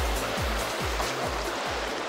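Background music with a steady deep bass beat, about two beats a second, over the wash of sea waves on a rocky shore.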